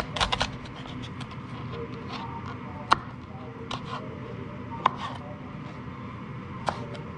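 Chef's knife chopping bell peppers on a plastic cutting board: a quick run of chops at the start, then single sharp knocks of the blade on the board every second or so.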